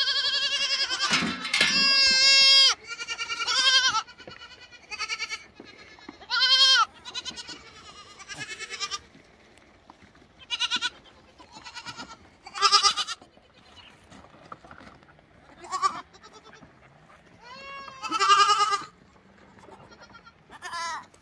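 Goat kids bleating repeatedly: about a dozen high, quavering calls at different pitches, some close together. The loudest calls come in the first few seconds.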